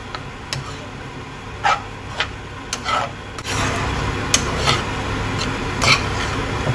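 A spatula stirring and scraping flattened rice (poha) around a non-stick frying pan, with irregular scrapes and light taps against the pan.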